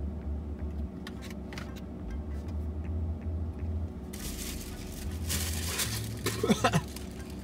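Paper bag and napkin rustling, starting about four seconds in and loudest near the end, with short throat and mouth noises as a bad-tasting bite of salad is spat into the napkin. A steady low car hum runs underneath.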